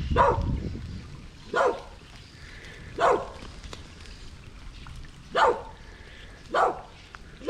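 Dogs barking at strangers: single sharp barks, one every second or two, about five in all.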